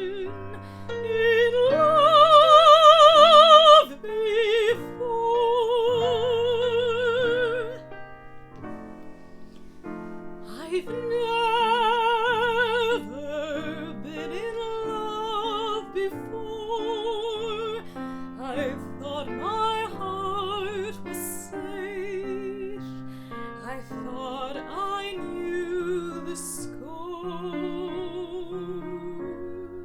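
A woman singing a slow song with wide vibrato over piano accompaniment, holding long notes; the loudest held note comes about two seconds in and breaks off near four seconds.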